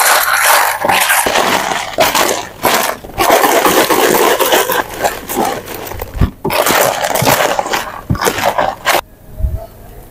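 Hands mixing raw chicken wings with ice cubes in a plastic tub: wet squelching with ice cubes knocking and scraping against the plastic, stopping suddenly about a second before the end.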